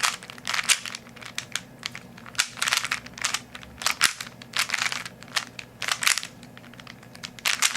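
A Rubik's Cube being turned rapidly during a speed solve: its plastic layers clack and rattle in quick bursts of turns, broken by short pauses.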